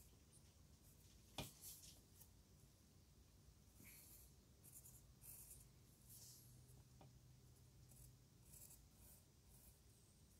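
Faint scratching of a graphite pencil drawing lines on paper, in short, irregular strokes, with one light tap about a second and a half in.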